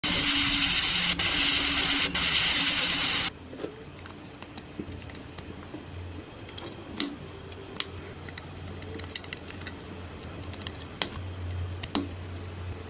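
A loud, steady hiss, like compressed air or spraying, cuts off suddenly about three seconds in, followed by scattered light clicks and taps of hand tools on metal parts during restoration work.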